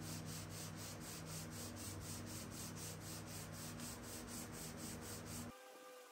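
Sanding sponge rubbed by hand back and forth over the bare wood of a drawer front, about four strokes a second. It cuts off abruptly near the end.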